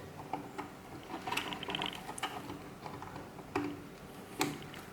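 Plastic power-supply cable connectors being handled and plugged in: scattered clicks, a short rattle a little over a second in, and one sharper click near the end.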